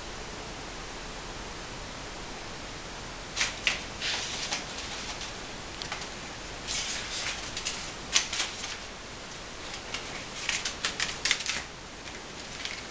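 A cat scrabbling on a tile floor, with claws clicking and scratching on the tiles and a small crumpled ball being batted about. The sounds come in scattered runs of quick clicks, starting about three seconds in, over a steady low hiss.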